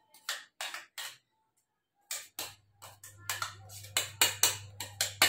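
Steel mixer-grinder jar being knocked and tapped to shake freshly ground green chutney out into a small steel bowl: a few sharp metallic knocks, a short pause, then a quicker run of knocks.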